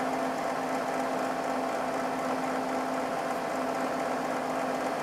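IMSAI 8080 microcomputer running, its cooling fan and power supply giving a steady whir with a constant hum.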